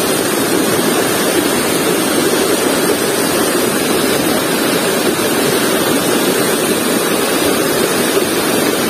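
Shallow river rushing over rocks: a steady, loud rush of flowing water.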